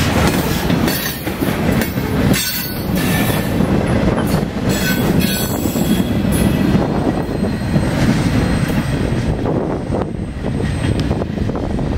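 Freight cars rolling past close by, their steel wheels clattering over the rails. The sharper, higher part of the noise fades near the end as the last car pulls away.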